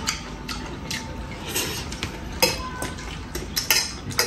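Metal forks clinking and scraping on ceramic plates, with scattered sharp clinks, the clearest about halfway through and a few more near the end.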